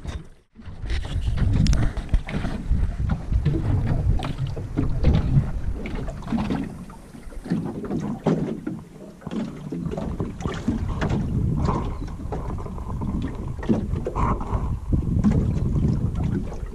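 Wind buffeting the microphone over water lapping and slapping against the hull of a small open boat, with scattered knocks and splashes.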